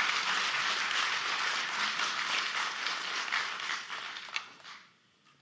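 Audience applauding in a hall, the clapping dying away near the end.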